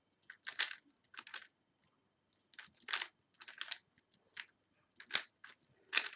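A plastic 3x3 Rubik's cube being turned fast, its layers clicking and clacking in quick irregular bursts.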